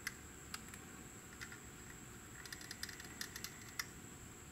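Faint small clicks and taps of hands handling a plastic model kit, the wings and fuselage pressed together at the wing-root seam while liquid cement is run along it. The clicks come singly in the first couple of seconds, then bunch together near the end, over a steady faint hiss and a thin high whine.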